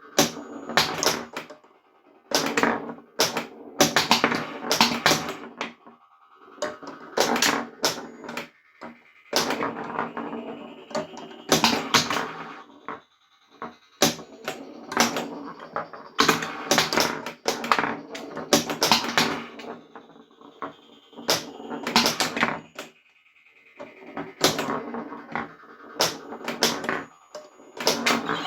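A 3D-printed Williams Space Shuttle pinball replica in play: rapid, irregular clacks of flipper solenoids and the ball knocking around the playfield, over the machine's electronic sound effects with rising and falling tones.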